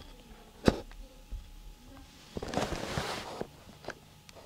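Handling noises: a sharp click less than a second in, then about a second of rustling with a few small knocks as the phone is moved about.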